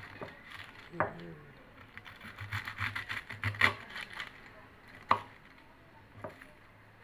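Kitchen knife slicing cabbage on a wooden chopping board: a run of quick cuts in the middle, with single knocks of the blade on the board about a second in, about five seconds in and once more near the end.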